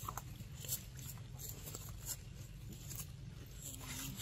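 Faint scattered crackles and ticks of dry leaf litter being disturbed, over a low steady background rumble.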